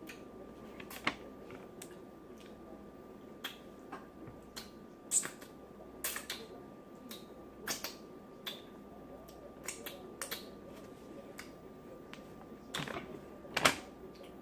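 Close-up mouth sounds of eating: scattered wet lip smacks and chewing clicks, a few every second or two, with louder smacks near the end.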